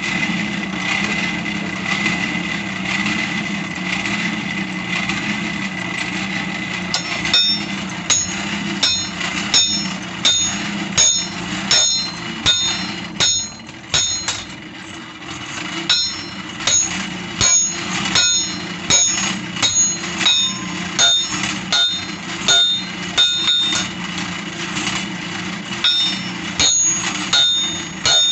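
A hammer striking steel on an anvil while a machete blade is forged: ringing blows about two a second, starting about seven seconds in, with a brief pause midway. Under them runs a steady mechanical drone, and a high whine in it stops as the hammering begins.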